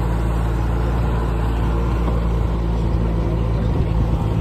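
Go-kart's small engine running steadily while the kart drives across bumpy grass, a constant low drone with a little unevenness near the end.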